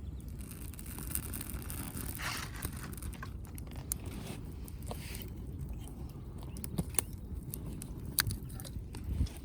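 Wood fire in a fire stand crackling, with sharp pops scattered through over a low steady rumble; a hiss swells briefly about two seconds in and again about five seconds in.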